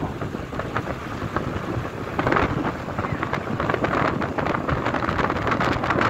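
Wind buffeting the microphone: a rough rushing noise full of crackles, growing louder about two seconds in.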